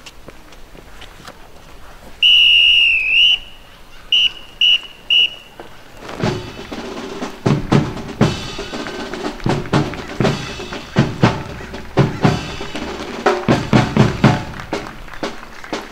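A drum major's whistle gives one long blast that dips in pitch at its end, then four short blasts, the signal for the drum roll-off. The marching band's drum line then plays, snare and bass drums, leading into a march.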